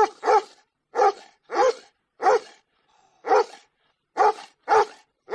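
A dog barking repeatedly: about eight short barks, roughly one every half second to a second, with a longer pause near the middle.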